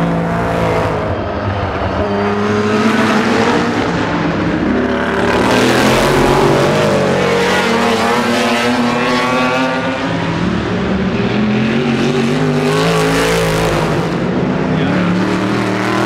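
V8-engined historic GT racing cars at full throttle passing one after another, the engine notes rising and falling as they go through the gears and sweep by.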